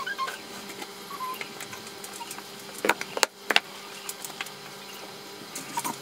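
Kitchen handling sounds: light clicks and rustles as baking ingredients are taken from the pantry shelves and moved about, with two sharp knocks about three seconds in.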